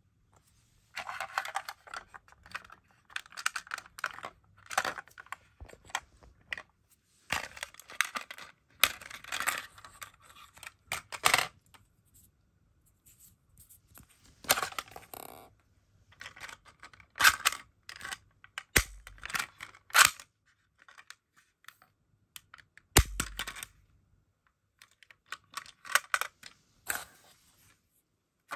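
Small plastic balls clicking and rattling against each other and against a clear plastic toy ball-shooting pistol as it is handled and loaded. The sound comes in short bursts with pauses, with several sharp clicks and a couple of duller knocks in the second half.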